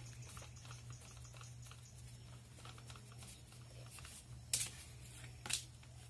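An electric polisher being handled while switched off, a pad fitted to its backing plate: faint clicks, then two sharper knocks about a second apart near the end, over a steady low hum.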